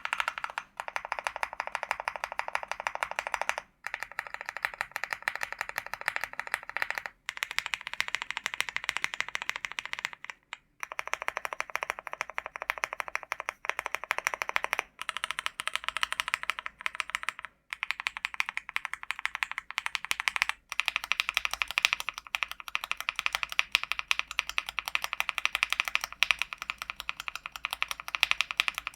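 Fast, continuous typing on a LEOBOG Hi75 mechanical keyboard with Akko CS Jelly Black switches: a dense run of keystrokes, broken by a few brief pauses of under a second.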